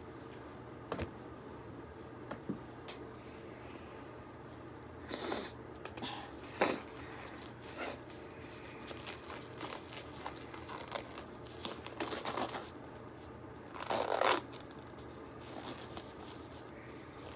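Disposable gloves being pulled onto the hands: scattered rustles and light clicks, with a few louder stretching swishes, the loudest late on.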